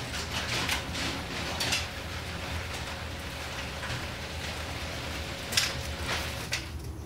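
Sectional garage door rolling up on its tracks: a steady low hum with a running rattle and several sharper clanks, the loudest near the end.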